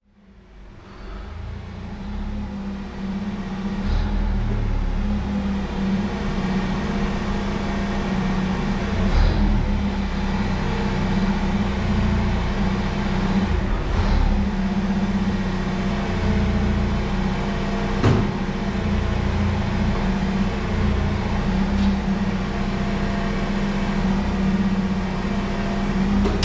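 An engine running steadily, a constant hum over a low rumble, with a few short knocks.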